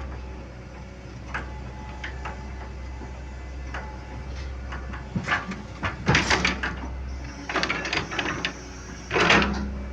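Hitachi excavator climbing onto a lowboy trailer: its engine running low and steady under repeated metallic clanks and knocks from the steel tracks on the ramp. The clanks get louder and come in clusters from about halfway.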